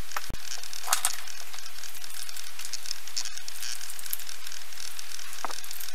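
A steady hiss, with a few faint scrapes and clicks of a knife working the spongy flesh out of a peeled green papaya.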